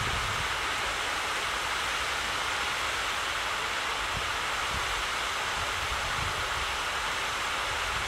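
Steady rushing outdoor ambience with no bird call, with uneven low rumbles of wind buffeting the microphone.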